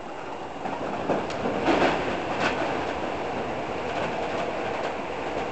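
Toei Shinjuku Line electric train heard from inside the car while running, with a steady rumble of wheels on rail and a few light clicks from rail joints. The noise grows louder about a second in and peaks around two seconds in as the train runs into the tunnel.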